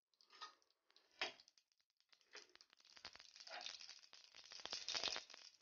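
Mustard seeds and urad dal in hot oil in a pan, starting to splutter: a few lone pops at first, then a thickening run of quiet crackles from a little past halfway, as the mustard seeds begin to burst.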